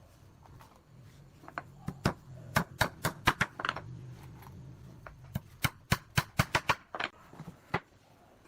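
Irregular sharp knocks and taps on pallet wood, with a quick run of about six knocks in a row in the second half, over a low steady hum.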